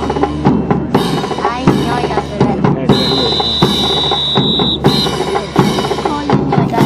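Band music with a steady drum beat of bass and snare. About three seconds in, a high steady whistle-like tone sounds for under two seconds, then once more briefly.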